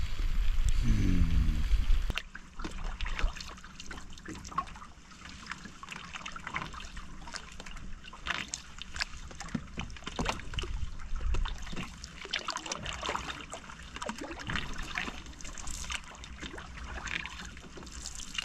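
Water dripping, trickling and splashing around a paddled canoe, in many small irregular splashes. For the first two seconds a low wind rumble on the microphone covers it.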